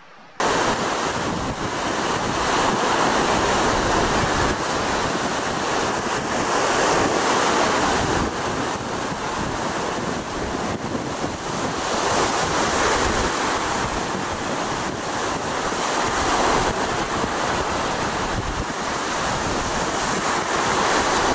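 Strong storm wind buffeting the camera microphone: a loud, even rushing noise that sets in abruptly and swells and eases in gusts.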